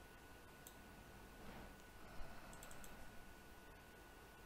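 A few faint computer mouse clicks over near silence: one under a second in and a quick cluster about two and a half seconds in. A faint steady high tone runs underneath.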